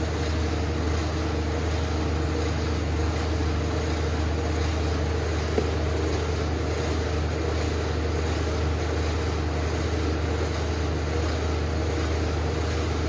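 Steady low mechanical drone of shop machinery running, with one faint click about five and a half seconds in.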